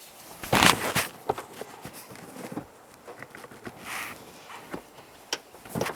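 Handling noise of a plastic car door panel while the door handle rod is clipped back on: a loud rustling scrape about half a second in, then scattered light clicks and taps.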